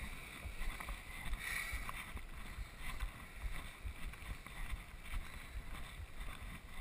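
Wind buffeting an action camera's microphone: an uneven low rumble of soft, irregular thumps over a faint steady hiss.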